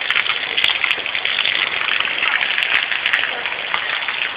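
Heavy rain pouring down in a steady downpour, a dense even hiss with fine crackling of drops.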